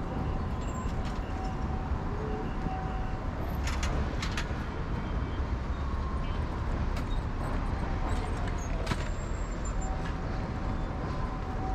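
Road traffic at a busy city intersection: a steady low rumble of passing cars, with a few sharp clicks.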